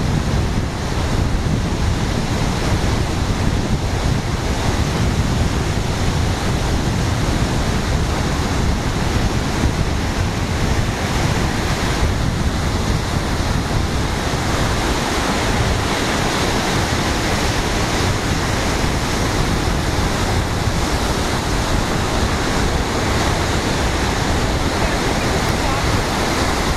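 Lake Michigan surf breaking steadily on a sandy beach, with wind buffeting the microphone.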